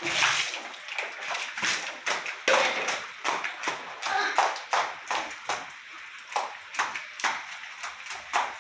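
Water splashing over a boy and onto a wet concrete floor: a run of sharp splashes and slaps, the biggest right at the start and again a couple of seconds in.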